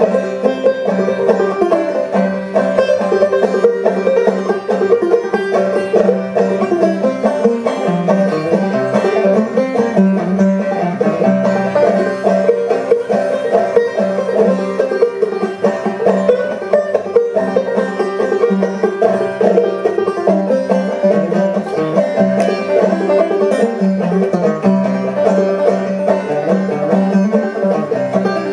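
Banjo played clawhammer style as a solo: a steady, driving rhythm of struck and brushed notes over a ringing drone.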